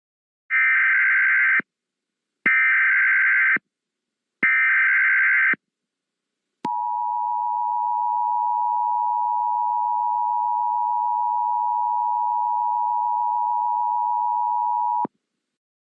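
Emergency Alert System header: three roughly one-second bursts of screechy digital data, each separated by a short silence. About six seconds in, the steady two-tone EAS attention signal starts and holds for about eight seconds before cutting off abruptly. Together they mark the start of a new emergency alert.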